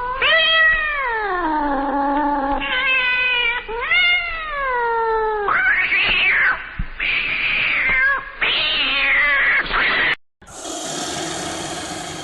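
Cat yowling: a run of long, drawn-out meows, the first ones sliding down in pitch and the later ones shorter and higher, rising and falling. About ten seconds in it cuts off abruptly and a different, noisier sound begins.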